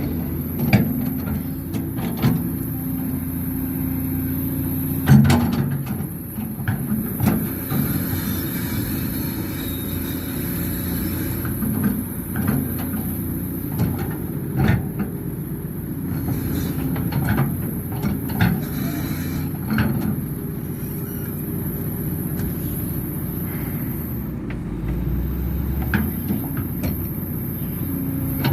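Excavator diesel engine running steadily under load, with short sharp knocks and clanks at irregular intervals throughout.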